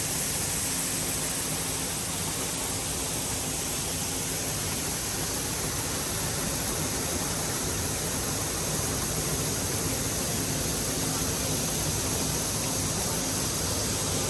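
Harvest machinery running steadily: an even rush of machine noise with a low engine hum underneath.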